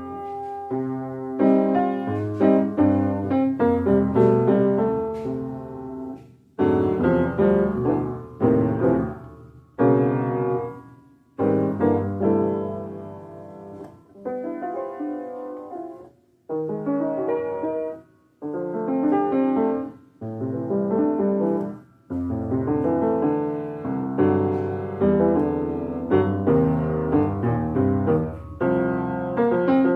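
Piano music: chords and a melody in phrases, with notes struck and left to ring away, and short pauses between some phrases.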